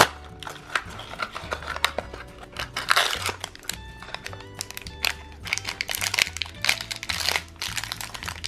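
Foil blind-pack wrapper from a Minecraft mini-figure box crinkling and tearing as it is opened by hand, in irregular crackles, over background music.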